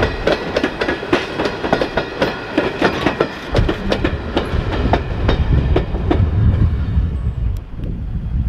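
Railroad cars rolling past, their wheels clicking over the rail joints in a quick, uneven clickety-clack. About halfway through the clicking fades and a low rumble takes over.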